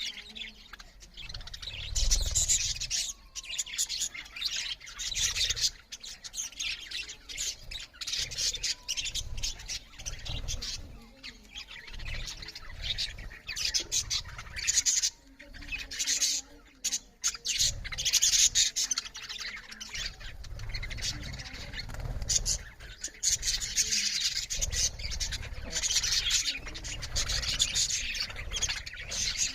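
Several budgerigars chattering loudly: a continuous mix of fast chirps, warbles and squawks, with occasional low bumps.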